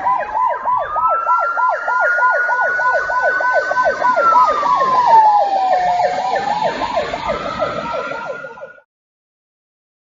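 Emergency vehicle sirens, two sounding at once: one a fast yelp of quick falling sweeps, about three or four a second, the other a slow wail that rises, holds and falls. Both cut off suddenly near the end.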